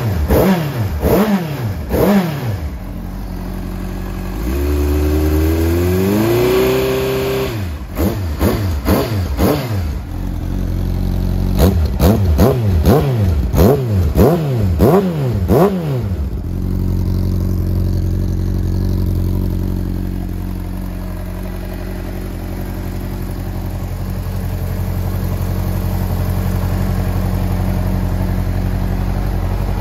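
Honda CBR600RR inline-four engine running through a TSR twin-muffler full exhaust, revved in a string of quick throttle blips, with one slower, longer rise in revs about five seconds in. After about sixteen seconds it settles to a steady idle.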